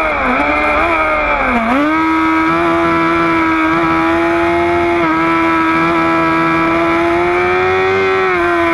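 Sport motorcycle's engine at high revs under way on track, heard from on board with wind rush. Its pitch dips sharply twice in the first two seconds and picks up again, then holds high and steady, creeping slightly upward, and drops a little near the end.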